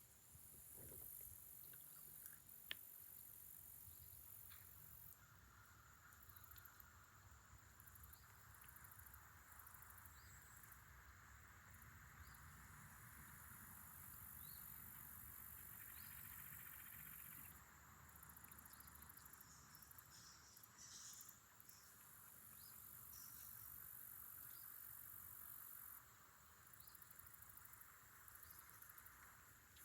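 Quiet pond-side ambience with a faint, high insect drone that stops and starts every several seconds.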